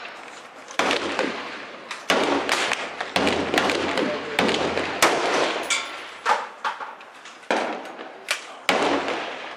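Gunshots at an outdoor shooting range, about eight to ten at irregular intervals. Each is a sharp crack followed by a decaying echo.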